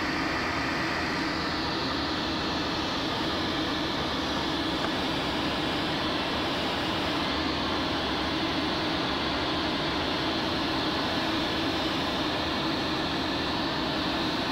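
Steady rush of airflow around a glider's canopy in flight, with a low steady hum under it. In the first second or so a higher sound falls in pitch and fades away.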